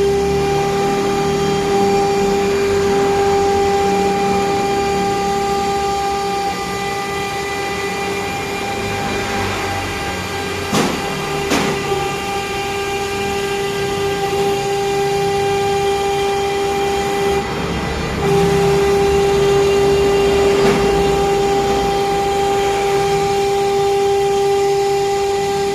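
CNC router spindle running with a steady high whine, a rumbling layer under it that changes in level as the machine works. Two sharp clicks about eleven seconds in.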